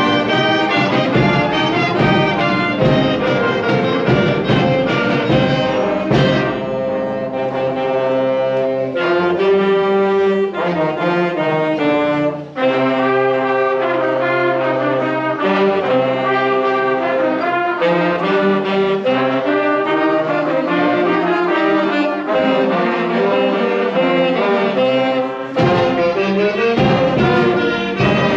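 School beginning concert band playing: trumpets, trombones, saxophones and clarinets in full chords over a percussion beat. The beat drives the first few seconds, long chords are held for several seconds, and the beat returns about halfway through.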